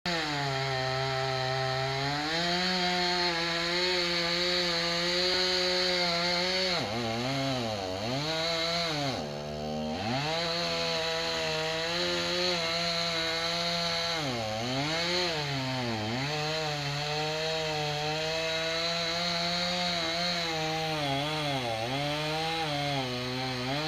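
Two-stroke chainsaw running at high revs while cutting into a standing tree trunk. Its engine note dips and recovers several times, first about seven seconds in, as the chain is loaded in the cut.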